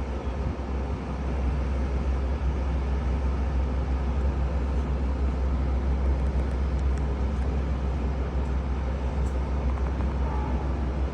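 Metra commuter train running with a steady low rumble, which grows a little louder about a second in and then holds.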